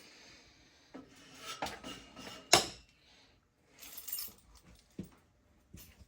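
Objects being handled and moved about: irregular scraping and rubbing with scattered knocks, and one sharp, loud knock about two and a half seconds in.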